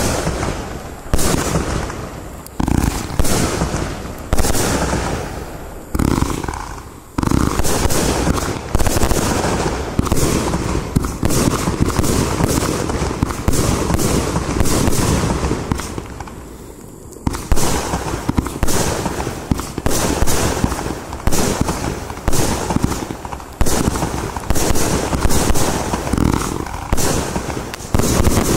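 Iskra Neon King compound firework battery firing a fast run of mixed-calibre shots that launch and burst one after another. There is a brief lull about sixteen seconds in, and then the shots resume with a loud bang.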